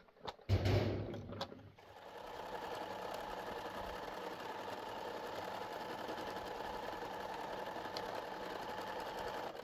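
Small portable electric sewing machine stitching steadily, starting about two seconds in and cutting off at the end. A brief loud knock comes first, about half a second in.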